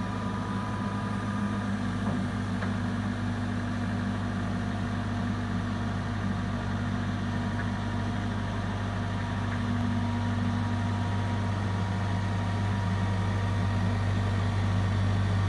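Caterpillar TH460B telehandler's diesel engine running steadily at low revs as the boom is retracted and lowered, getting slightly louder toward the end.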